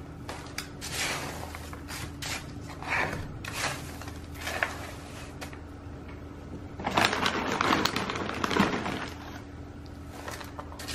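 Dry orchid bark potting mix handled and dropped into a terracotta pot: irregular rustling and clattering of bark chips, busiest and loudest about seven to nine seconds in.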